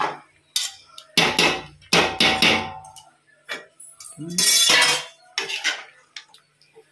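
Metal spatula and ladle clanking against metal cooking pots, with some short metallic ringing. There is a quick run of sharp knocks, a longer scrape about four and a half seconds in, then a couple more knocks.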